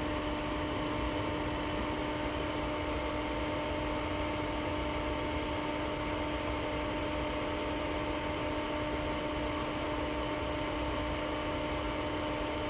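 Steady hum made of a few even, unchanging tones over a low hiss and rumble, with no radio transmission on the channel.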